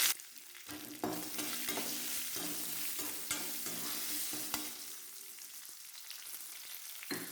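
Hot oil sizzling in a kadai as a South Indian tempering of mustard seeds, urad dal and curry leaves fries, with a spoon stirring and a few light knocks. The sizzle grows quieter in the second half.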